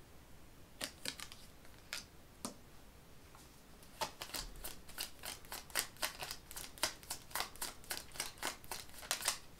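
Tarot cards being shuffled by hand: a few separate crisp card clicks, then from about four seconds in a quick run of clicks, several a second.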